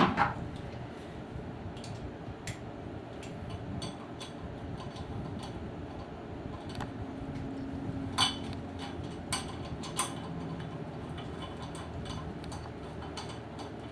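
Scattered small metallic clicks and taps from handling stainless steel glass clamps and their screws, with a few louder clinks about eight and ten seconds in.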